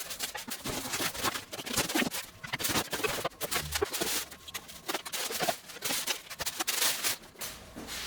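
Packaging of a table saw being handled and opened, sped up: a dense, fast run of rustling, scraping and knocking.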